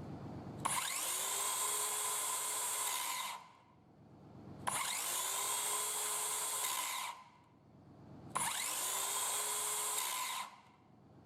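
Hitachi C18DBAL 18 V cordless circular saw motor switched on three times, each time spinning up with a rising whine, running steadily for two to three seconds, then coasting down when the trigger is released. This is a test run of the repaired saw.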